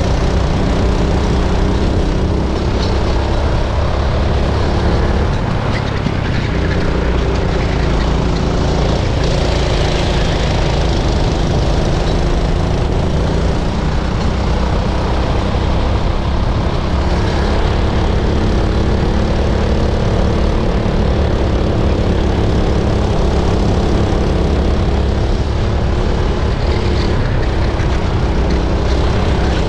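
Racing go-kart engine running hard on track, heard from on board the kart; a steady, loud engine note that rises and falls a little with the revs.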